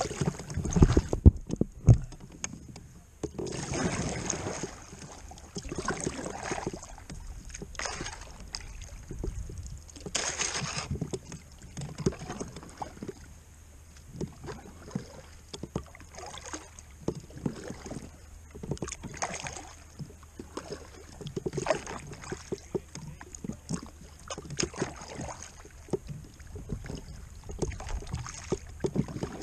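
Kayak paddling: a double-bladed paddle dipping and splashing into river water on alternating sides, a stroke every second or so. A few sharp knocks come in the first two seconds.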